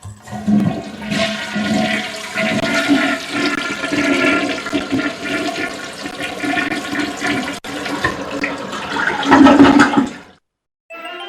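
Water rushing for about ten seconds, then cutting off abruptly.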